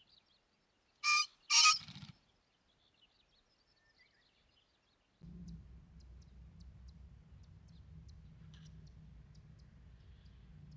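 Male green pheasant crowing: two loud, harsh notes about half a second apart, followed by a short low flutter of wing-beating.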